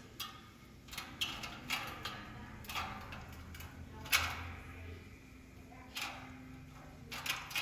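Scattered light clicks and knocks of small metal and plastic heater parts being handled, with a sharper knock about four seconds in.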